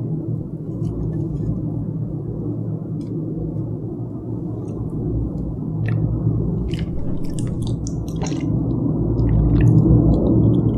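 Close-miked chewing of soft food, a dense muffled mouth sound with small wet clicks scattered through it.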